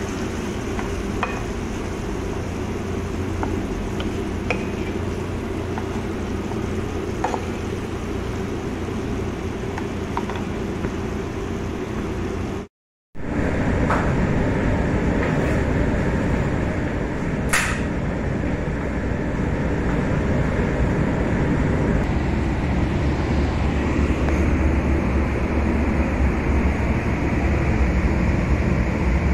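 Mixed vegetables frying in a pan, with a few light clicks of the wooden spoon, over a steady machine hum. The sound breaks off for a moment about 13 seconds in. Then a louder, even kitchen hum follows, with one sharp click a few seconds later.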